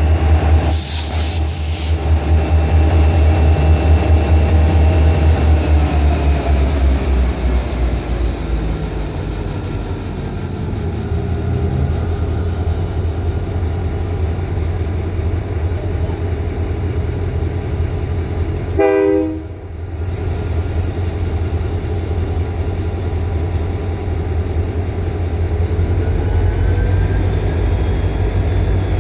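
EMD SD40-2 diesel-electric locomotives, 16-cylinder two-stroke engines, running under load as the train gets moving: a deep, steady rumble whose engine note slides lower about a quarter of the way in. A short horn blast sounds about two-thirds of the way through.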